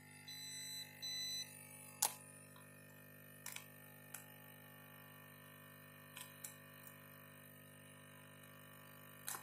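Two short beeps, each about half a second, from an MS8910 smart SMD tester as its tweezer probes are put on MLC capacitors of an LCD monitor's T-con board, then a few faint scattered clicks, over a low steady hum.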